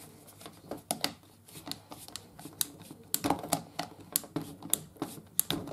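Insulated screwdriver tightening a terminal screw on a plastic double socket: a string of small, irregular clicks and scrapes as the screw turns and the socket is handled.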